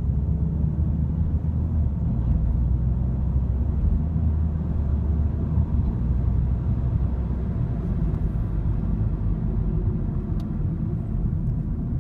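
Ford Mk3 TDCi diesel car running steadily, a continuous low rumble of engine and vehicle noise.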